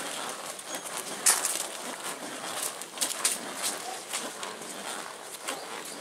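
A loaded wheelbarrow being pushed over a yard path, rattling with irregular clicks and knocks, the sharpest about a second in.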